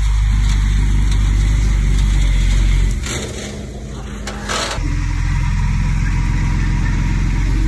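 Heavy diesel engine running steadily. About three seconds in, its low running drops away for nearly two seconds, then comes back.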